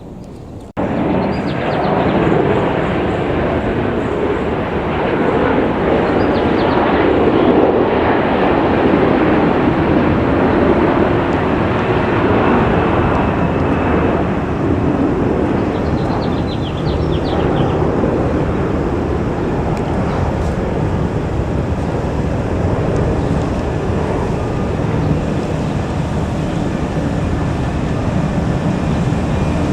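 Heavy road-work vehicle engine running loudly and steadily, as used in slurry seal paving. It cuts in abruptly about a second in.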